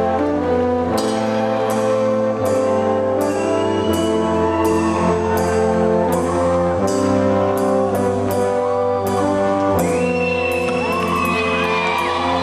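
Live rock band playing a slow instrumental passage: held orchestral brass-like chords from the keyboards over a steady beat of drum and cymbal hits that comes in about a second in, with high sliding notes near the middle and end.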